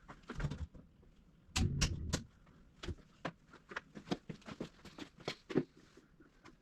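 Irregular knocks and clatter of things being handled, with a heavier run of three clunks about a second and a half in.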